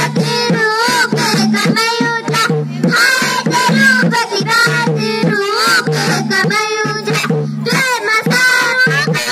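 Indian folk song with a high singing voice over a steady drone and a regular drum beat.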